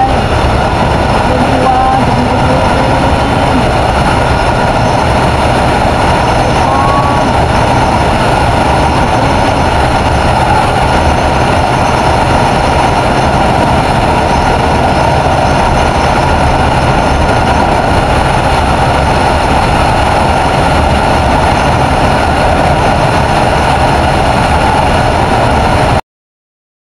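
Steady wind rush on the microphone mixed with a TVS Ntorq 125 scooter's single-cylinder engine held at full throttle on a top-speed run, as the scooter climbs from about 70 to 97 km/h. The sound cuts off suddenly near the end.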